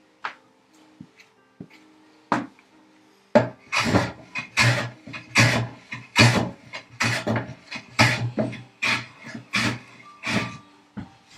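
Hand plane taking quick repeated strokes across the high corners of a walnut box's end grain, about one stroke every half-second, starting about three seconds in after a couple of single passes. Background music plays under it.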